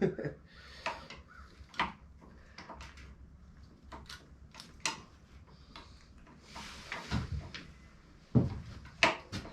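Scattered clicks, clinks and knocks of hand tools and metal parts being handled during motorcycle assembly, with a couple of heavier thumps near the end.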